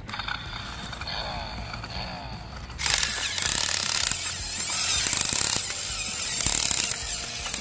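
Toy off-road truck's motor and gears whirring with a ratcheting rattle as it is pushed along. It starts faint and gets much louder about three seconds in, then runs on steadily.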